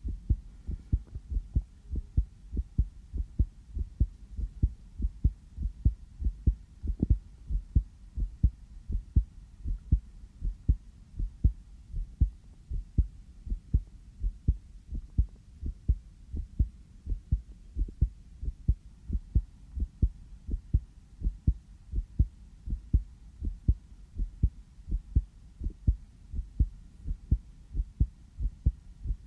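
A real human heartbeat heard close up: a steady, quick rhythm of low, dull thumps.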